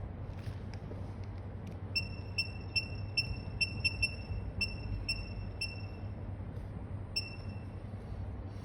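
A dozen or so short, identical high electronic beeps at one pitch, unevenly spaced over about five seconds, as from buttons being pressed on a device's control panel, over a steady low hum.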